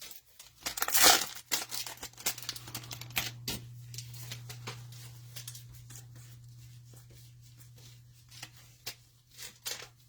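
Cellophane wrapper of a trading-card cello pack torn open, with a loud tear about a second in, then crackling and crinkling of the plastic as it is pulled away.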